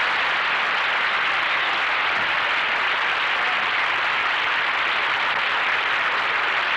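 Studio audience applauding, a steady, even clapping that holds at one level throughout.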